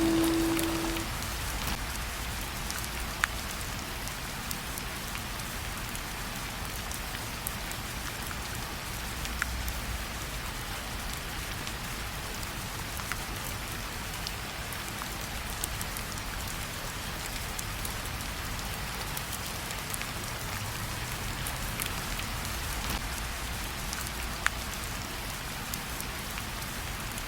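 Steady rain falling, an even hiss with the light tick of individual drops. The last note of a music track dies away in the first second.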